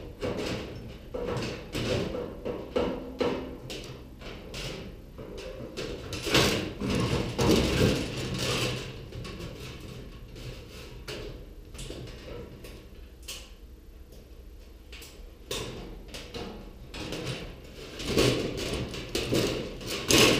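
Sheet-metal parts of a gas stove clattering and knocking as they are handled and pulled apart, with bursts of louder clanks about a third of the way in and again near the end.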